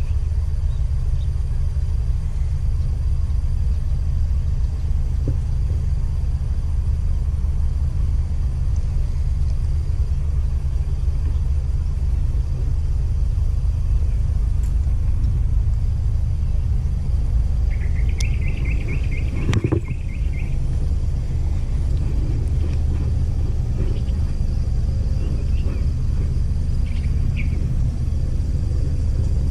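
Steady low outdoor rumble. A short, rapid, chattering sound comes about 18 seconds in, followed by a single knock.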